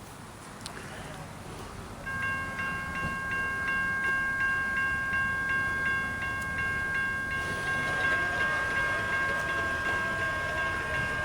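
Railroad crossing bell ringing in quick, even strokes, about two and a half a second, starting a couple of seconds in, over the growing rumble of an approaching train.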